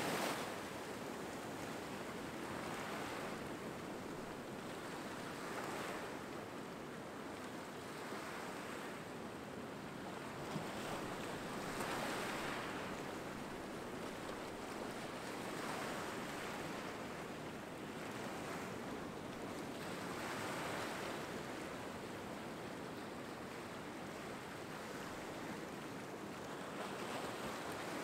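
Small waves breaking and washing up a sandy shore among rocks, the surf swelling and fading every few seconds.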